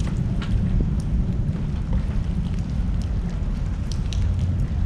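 Wind buffeting the microphone, a steady low rumble with no clear events in it.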